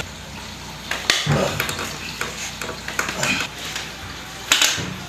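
Sharp knocks and clicks from the hands-on work of a chiropractic adjustment, the loudest about a second in and again near the end, with soft rustling between.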